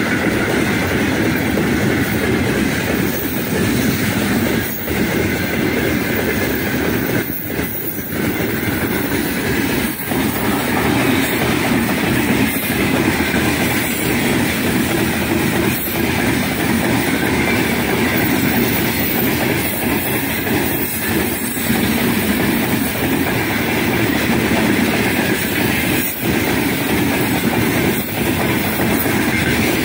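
Open gondola wagons of a heavy freight train rolling past close by at speed: a loud, steady rumble and rattle of steel wheels on the rails, with occasional knocks as wheels pass over rail joints.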